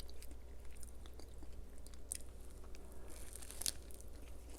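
Close-miked eating: a person chewing and biting crisp, crunchy food, with a louder crackling crunch about three seconds in.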